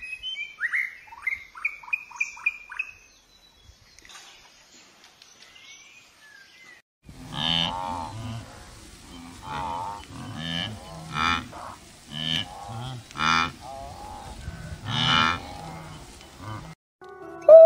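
A white-rumped shama singing a quick run of whistled notes for the first three seconds. After a short lull, wildebeest calling, a string of low calls repeated about once a second.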